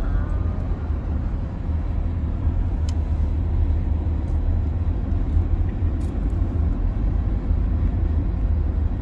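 Steady low rumble of a car heard from inside the cabin, engine and road noise with no change in pitch.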